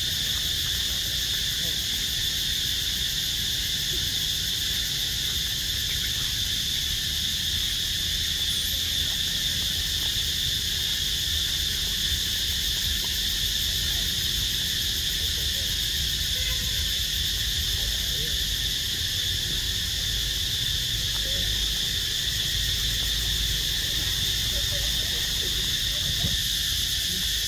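Steady, continuous high-pitched drone of an insect chorus, with a low rumble underneath.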